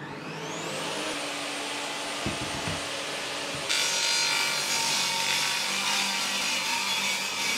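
Bosch table saw switched on: the motor winds up in a rising whine over about a second, then runs steadily. About three and a half seconds in, the blade bites into an OSB sheet and the sound grows louder and harsher as the cut continues.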